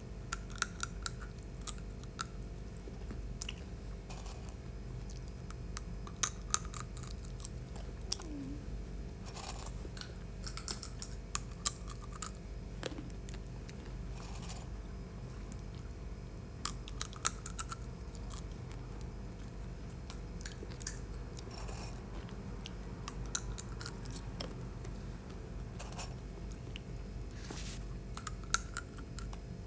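Sunflower seeds being cracked between the teeth and chewed: small clusters of sharp cracks every second or two, over a steady low hum.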